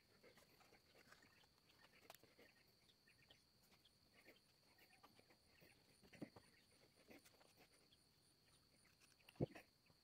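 Near silence: room tone with a faint steady high whine and scattered soft ticks, and two brief knocks, one about six seconds in and a louder one near the end.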